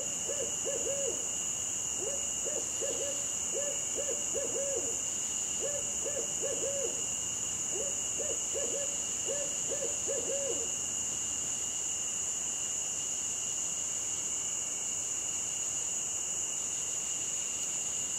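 An owl hooting in short runs of a few low, arched notes, stopping about ten seconds in, over a steady high-pitched drone of night insects.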